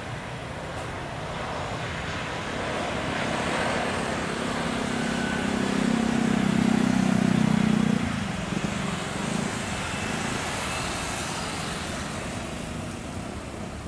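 Boeing 737 airliner's jet engines as it rolls down the runway: a steady rushing with a low hum that swells to its loudest about six to eight seconds in, then eases off.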